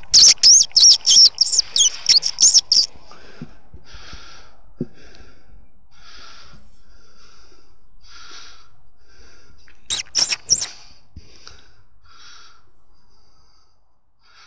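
A predator call squeaked to imitate a distressed mouse or rodent: about a dozen rapid, high, gliding squeaks over the first three seconds, then a short burst of three near ten seconds. Soft breathy puffs come in between.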